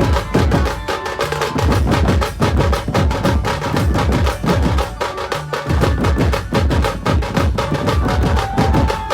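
Chhattisgarhi dhumal band playing loud, with fast, dense drumming over a heavy bass beat. A held melody note comes in near the end.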